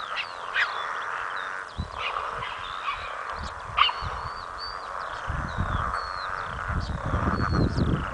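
Green and golden bell frogs calling from a pond, a dense croaking chorus, with birds chirping and whistling over it. Low rumbling noise comes in from about five seconds in.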